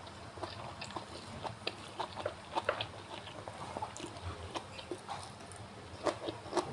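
Close-miked chewing of crunchy raw winged beans: irregular crisp crunches and mouth clicks, several a second, with a quick cluster of louder crunches near the end.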